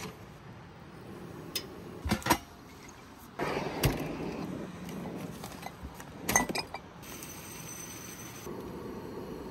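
Scattered clinks and knocks of crockery and glass jars being shifted about in a kitchen drawer, a few sharp clinks several seconds apart.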